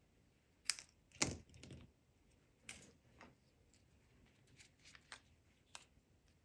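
Irregular light clicks and taps of paper-crafting tools and card pieces being handled on a work surface. The loudest, about a second in, has a soft thud; smaller ticks follow later.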